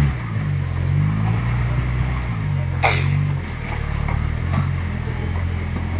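Tube-frame rock crawler buggy's engine revving up and down as the buggy climbs over boulders, with one short sharp sound about three seconds in.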